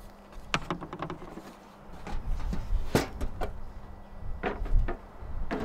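Wooden panels and a plastic case knocking and clattering as they are lifted in and out of a plywood cargo drawer in the back of an SUV: scattered knocks, the loudest about three seconds in and again just before five seconds.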